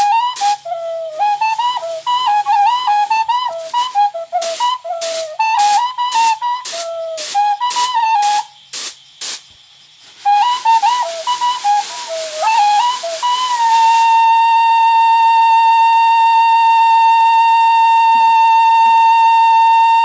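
A high, flute-like melody with sliding, ornamented notes that settles into one long held note about two-thirds of the way through. Under it for the first half, rhythmic swishes of rice being tossed in a woven bamboo winnowing tray, about two to three a second, stopping about halfway.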